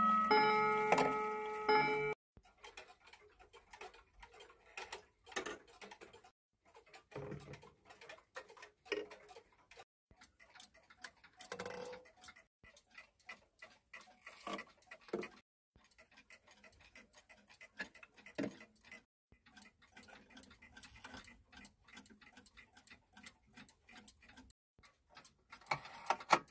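A Garrard mantel clock's chime rods ring for about the first two seconds, then cut off abruptly. After that come quiet ticking and irregular clicking of mechanical clock movements as their minute hands are pushed round toward the hour. A few sharper clicks stand out, typical of a rack-and-snail striking train dropping into warning.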